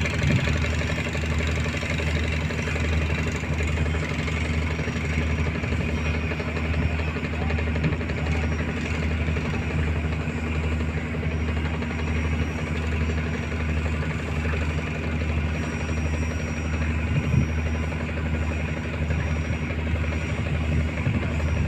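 Inboard diesel engine of a wooden fishing boat running steadily at low speed, a low, even throb that does not change.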